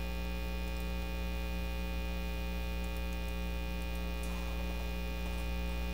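Steady electrical mains hum with a buzzy edge, unchanging throughout.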